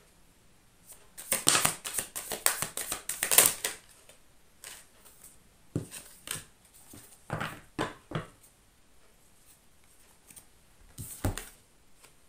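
Oracle cards being shuffled by hand, a quick run of rapid flicking snaps from about a second in that lasts some two seconds. Then a few separate snaps and taps as cards are drawn and laid on the table, with one last pair near the end.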